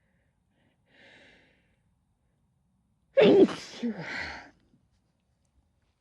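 A person sneezing: a faint intake of breath about a second in, then a sudden loud sneeze about three seconds in that trails off over a second and a half, part of a fit of sneezes.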